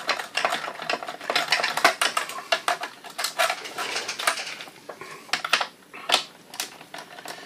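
Screwdriver taking a screw out of a slide projector's metal chassis: a run of small metallic clicks, scrapes and rattles.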